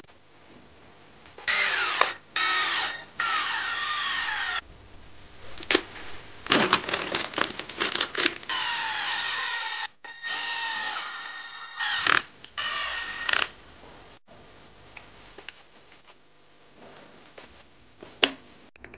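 Handheld power driver running in repeated bursts of half a second to a second and a half, its motor whine sliding up and down in pitch as screws are driven into the RC truck's parts. Sharp clicks and rattles of small parts come in between.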